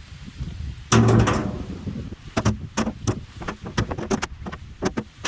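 Rocks being loaded into the metal tub of a power barrow: one heavy clang with a ringing decay about a second in, then a run of sharper, irregular knocks as smaller stones go in.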